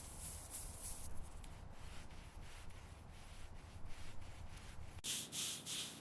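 Abrasive scrubbing of a rusty metal tool, in repeated strokes about three a second. About five seconds in, the strokes turn louder and sharper.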